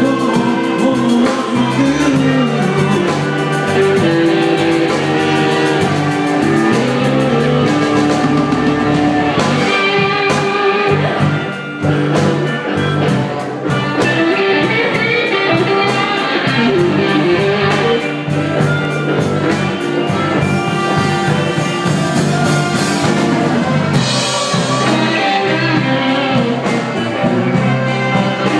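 Blues band playing: guitar over a driving drum kit beat, with a short dip in loudness partway through.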